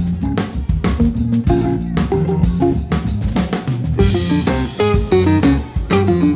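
Live small jazz combo playing: hollow-body electric guitar, keyboard and drum kit, with the drums keeping a steady beat. About two-thirds of the way through, a run of falling notes comes in.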